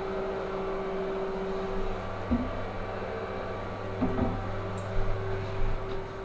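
Steady low mechanical hum with a few soft handling knocks about two and four seconds in.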